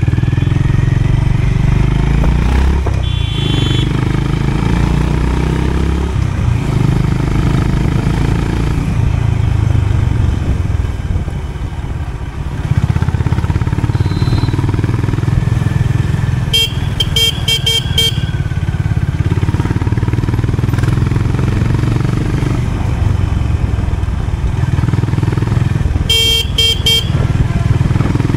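Honda CB350 RS's single-cylinder engine running as the motorcycle is ridden; the engine sound dips briefly about halfway through, then comes back up. A horn sounds in a quick run of beeps about two-thirds of the way through, and again near the end.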